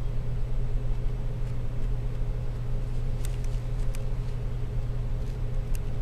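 A steady low hum, with a few faint light clicks a little after three seconds in and again near the end.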